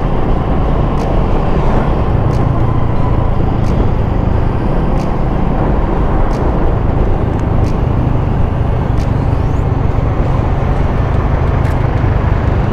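Motorcycle engine running steadily while riding at road speed, with wind rushing over the handlebar-mounted microphone and tyre and road noise.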